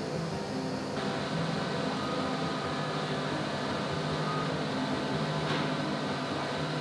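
Large-format FDM 3D printer running: its stepper motors hum in short steady tones that jump in pitch as the print head moves, over a steady fan hum.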